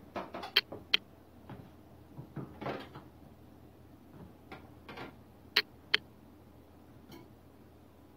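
Toaster oven being opened and emptied: the door and wire rack clicking and scraping, with sharp clinks of a plate and utensil against the rack. Two pairs of sharp clicks come near the start and again past the middle, with brief scrapes between.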